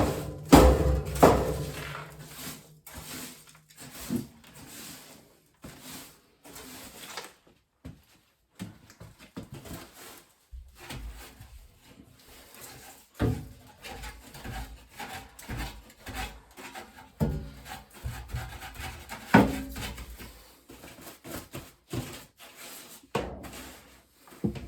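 Irregular rubbing, scraping and knocking of things being handled and moved about, with a few louder knocks.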